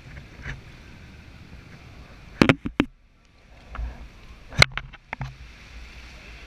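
Kayak paddling on calm water: a low steady wash of water, broken by two clusters of sharp knocks and splashes from the paddle, a couple of seconds in and again just past the middle.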